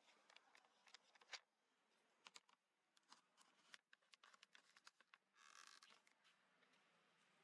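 Faint, irregular clicks and taps, the loudest about a second and a half in, with a short rasping burst a little past the middle.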